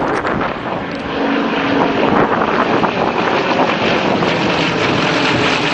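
Propeller airplanes flying past in formation: a loud, steady drone that swells about a second in, with wind buffeting the microphone.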